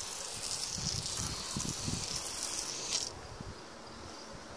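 Aerosol can of wasp and hornet killer spraying with a steady hiss that cuts off suddenly about three seconds in.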